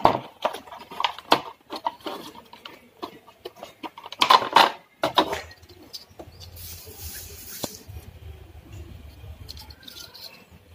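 Plastic clicks, scrapes and knocks of screwdrivers and fingers prying a circuit board loose from a dishwasher's plastic control-panel housing, busiest in the first five seconds with the loudest rattle about four seconds in, then quieter scraping and handling.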